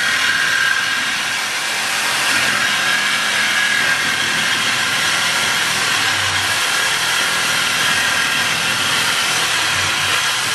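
Power saw with a fresh blade cutting steadily through the steel exhaust pipe, a continuous high screech of metal being sawn with a held tone running through it.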